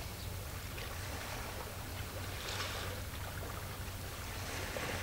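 Small waves washing, a steady hiss that swells about two and a half seconds in and again near the end, over a steady low hum.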